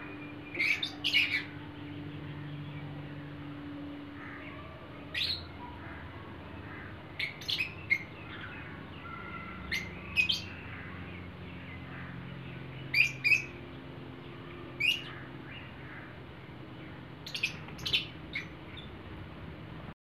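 Lovebirds giving short, sharp, high chirps, in quick pairs or small clusters every few seconds.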